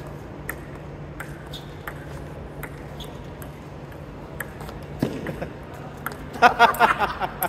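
Table tennis rally: the ball clicks off the bats and the outdoor table in a run of sharp ticks. A loud burst of voices comes near the end.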